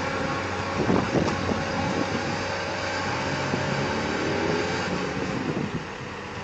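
Diesel engine of a wheeled loader running under load, with steady engine drone and street noise, and a couple of knocks about a second in.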